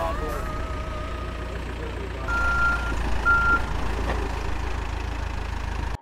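Cat 420F backhoe loader's diesel engine running with a steady low rumble, and its backup alarm sounding two beeps about two seconds in, a longer one then a short one.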